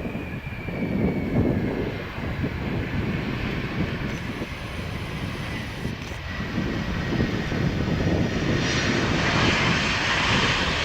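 Airliner jet engines with a whine that falls slowly in pitch, over gusty wind rumble on the microphone; a louder rushing noise builds near the end.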